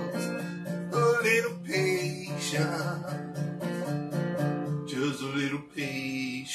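Gretsch square-neck resonator guitar in open G tuning, played lap-style with a steel bar: a steady run of fingerpicked bass notes about three a second under melody notes, several of them sliding in pitch.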